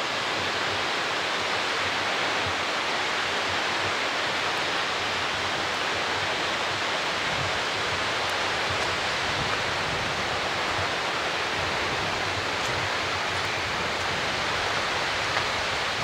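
Skógafoss waterfall: the steady, even rush of a large waterfall's falling water.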